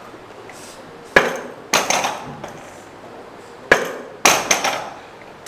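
Barbell loaded with bumper plates clanking during two seal-row reps: each rep a sharp metal knock followed about half a second later by a short rattle of clanks, about 1 s and 3.5 s in.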